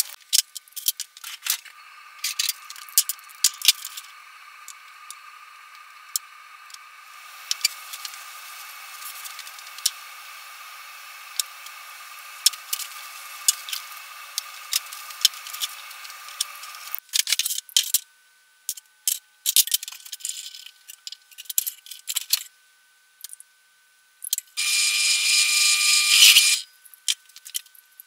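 Small plastic and metal parts being handled on a workbench: a scatter of clicks and clacks from a plastic electrical enclosure and conduit fittings, with a loud rasping noise lasting about two seconds near the end.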